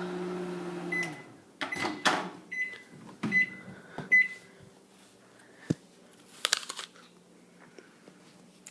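Microwave oven running with a steady hum, which cuts off about a second in; then four short high beeps mixed with several clicks and knocks.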